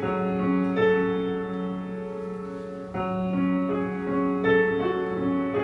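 Piano playing a slow, sparse introduction, a few notes struck about every second or two and left to ring over a held low note.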